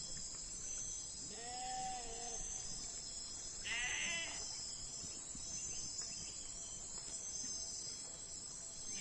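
Two short animal calls: a lower, stacked call about a second and a half in, then a higher, wavering call about four seconds in. A steady high-pitched background drone runs underneath.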